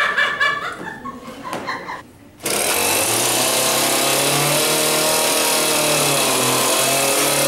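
Chainsaw starts up suddenly about two and a half seconds in and then runs steadily and loudly. A few light clicks come before it.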